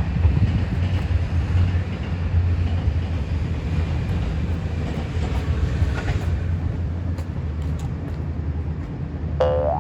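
Steady low drone of a vehicle's engine and road noise while under way. Near the end a short tone sweeps rapidly upward.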